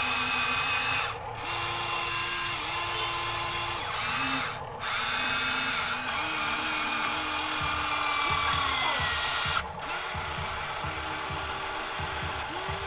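Electric motors of a Huina RC excavator whining as the arm and bucket move, the pitch shifting with each move and cutting out briefly between moves.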